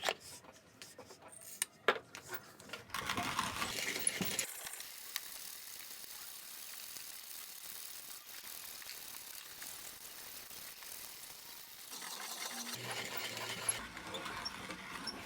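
1930s Zassenhaus 2550 Mokka manual conical burr coffee grinder grinding coffee beans with its burrs set to the finest setting, just touching. A few sharp clicks come first, then a steady crunching grind that is fainter in the middle and louder again near the end.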